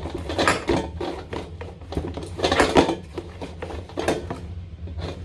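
Plastic slime containers being handled: irregular clicks and knocks as tubs and lids are picked up and set down, in several clusters.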